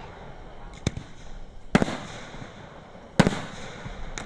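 Fireworks display: aerial shells bursting in four sharp bangs, roughly a second or more apart, each trailing off.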